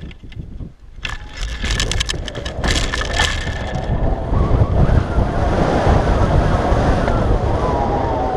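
Hang glider running launch: quick footfalls and knocks of the take-off run for about two seconds, then wind rushing over the glider-mounted microphone, rising and staying loud and steady once the glider is flying.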